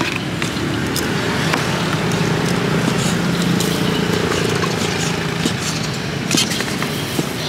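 Cleaver chopping grilled sausages on a chopping board: a few sharp knocks, spaced irregularly. Under them a motor vehicle's engine hums steadily and swells in the middle.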